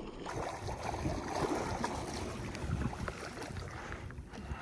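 Wind blowing on the microphone, with small waves washing against shore rocks.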